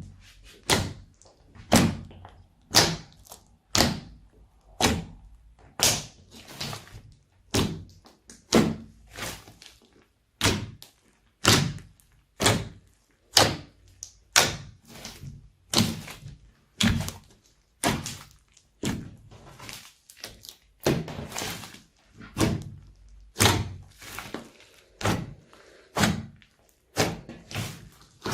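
Slime being pressed and slapped by hand: a sharp, wet slap or pop about once a second, in an even rhythm.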